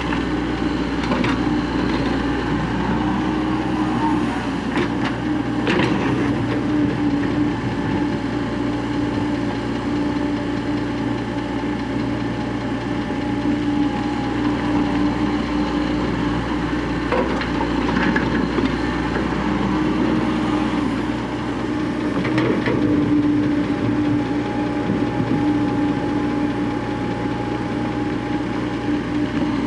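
Tracked excavator's diesel engine running steadily under work, with a few scattered knocks and clatters from the digging and loading.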